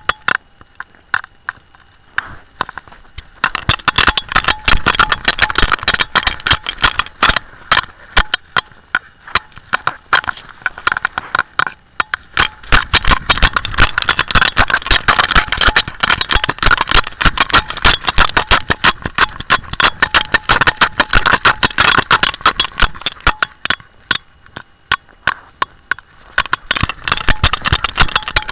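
Handling noise from a camera worn by a Jack Russell terrier: dense, irregular knocking, rattling and scraping as the housing bumps and rubs against the dog's fur and collar while it moves, with grass brushing past. It eases off for a few seconds at the start and again near the end.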